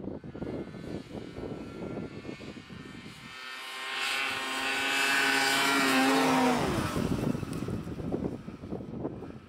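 Two-stroke snowmobile approaching and passing close by: its engine whine grows louder to a peak and drops in pitch as it goes by, about six and a half seconds in, then fades. Wind buffets the microphone throughout.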